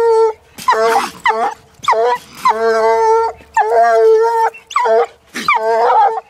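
A one-year-old Walker coonhound baying at a caged raccoon: a rapid string of about eight loud, pitched calls, short barks mixed with longer drawn-out bays.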